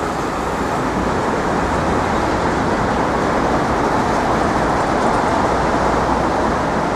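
Steady city street noise, a continuous traffic roar without distinct events.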